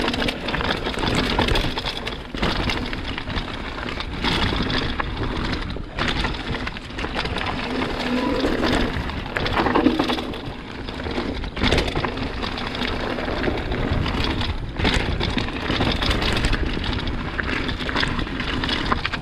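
Mountain bike riding over a dirt trail: an uneven rushing noise of tyres on dirt and the bike rattling over bumps, with several sharp knocks along the way.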